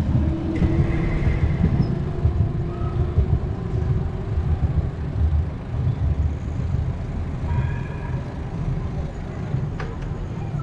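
Wind buffeting the microphone with rolling road rumble during a bicycle ride, uneven and gusty. A faint hum rises slowly in pitch over the first few seconds.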